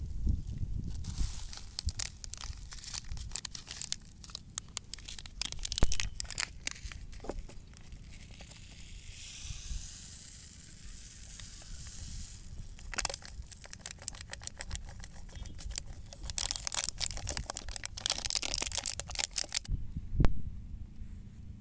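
Foil pesticide sachets (Ridomil Gold and Actara) crinkling and tearing as they are opened and handled, with a soft steady hiss midway as powder is poured from a sachet into a plastic cup. A single thump near the end.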